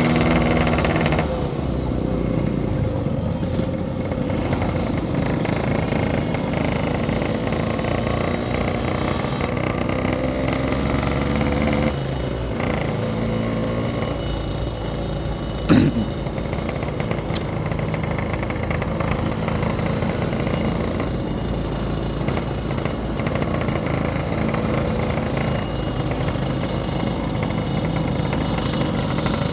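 Yamaha RX-King's 135cc two-stroke single-cylinder engine running under way, its pitch rising slowly as the bike gathers speed. A single sharp knock about sixteen seconds in.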